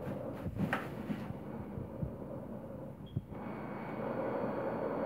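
A cat pouncing on and batting at a plastic bag on a wooden floor: soft thumps and brief crinkling of plastic in the first second or so, and another thump about three seconds in, over a steady background hum.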